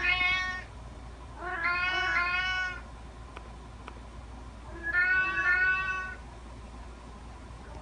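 Cat meowing: a call trailing off at the start, then two long, drawn-out meows, one about two seconds in and one about five seconds in, with a couple of faint clicks between them.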